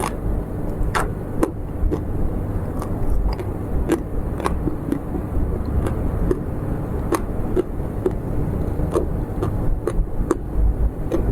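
Close-miked mouth sounds of eating: sharp clicks and smacks about once or twice a second, over a steady low rumble.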